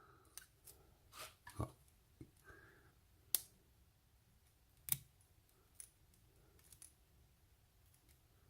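Faint, scattered clicks and taps of small lock parts (pins and springs from a gutted pin-tumbler lock) being handled, with two sharper clicks about three and five seconds in.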